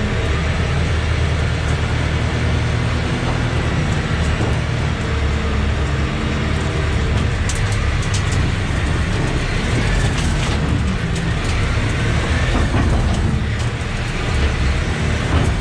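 Sherp 10x10 off-road vehicle's engine running steadily, with a few short clicks and knocks now and then.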